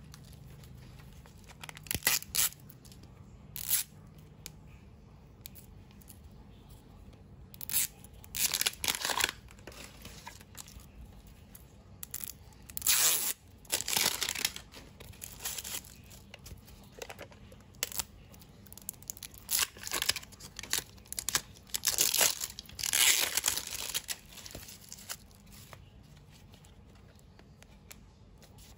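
Plastic packaging of an L.O.L. Surprise doll ball being torn open and crinkled in the hands, in irregular short bursts. The loudest tearing comes about halfway through and again a few seconds before the end.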